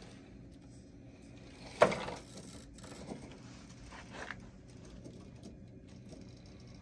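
Scale RC crawler truck knocking against rocks as it comes down off a ledge: one sharp knock about two seconds in, then two lighter knocks, over a faint steady background.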